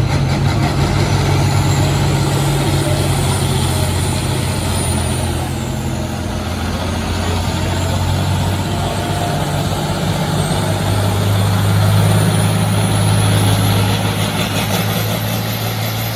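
Farm tractor engine running steadily under a heavy, even engine note, swelling a little about two-thirds of the way through, with a faint high whine rising and falling above it.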